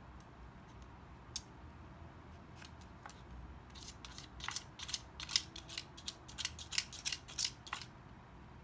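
Wooden tiles of a dog puzzle toy clicking and clacking as a toy poodle noses and paws at them. A few single clicks come first, then a dense, irregular run of sharp clacks from about four to eight seconds in.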